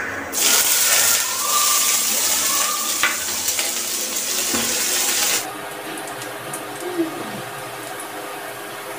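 Chopped onions hitting hot oil in a stainless steel kadai: a sudden loud sizzle for about five seconds, then a quieter sizzle with a spatula scraping and stirring in the pan.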